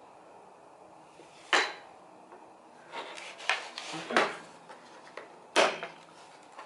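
Plastic clamshell housing of a Black and Decker string trimmer handle being handled and worked apart: two sharp plastic knocks, about one and a half seconds in and near the end, with a run of small clacks and rubbing between them.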